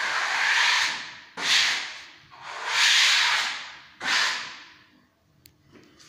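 Close rushing noise on a handheld phone's microphone: four swelling bursts, each up to about a second long and spaced about a second apart, dying away after about five seconds.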